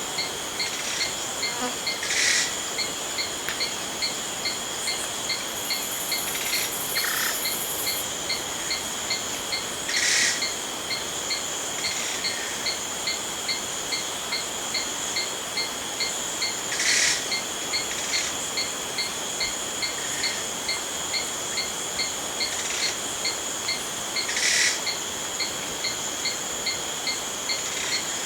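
Jungle night ambience: a steady high-pitched insect drone with crickets chirping in an even pulse of about two to three chirps a second. A short, louder call cuts through four times, roughly every seven seconds.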